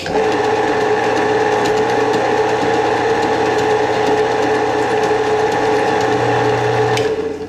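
Benchtop Harbor Freight drill press driving a center drill into aluminum: a loud, steady, even-pitched cutting sound over the motor's hum, starting suddenly and stopping about seven seconds in.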